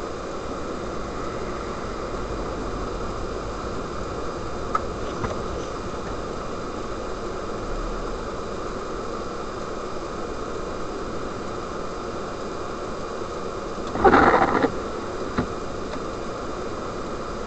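Steady hiss of a car driving on a snow-covered road, heard from inside the cabin: engine, tyres and air noise, with a few light clicks. A short, loud rattling clatter comes about fourteen seconds in, followed by one more click.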